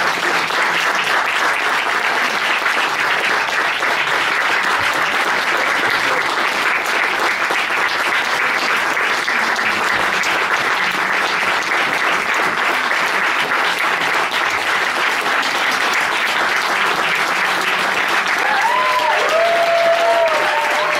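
Theatre audience applauding steadily, with a few calls from the crowd near the end.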